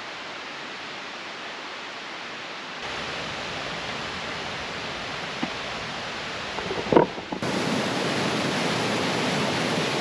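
Steady rush of flowing river water, stepping abruptly louder about three seconds in and again past seven seconds. The loudest stretch is a glacial river tumbling over rocks. A brief sharp sound stands out about seven seconds in.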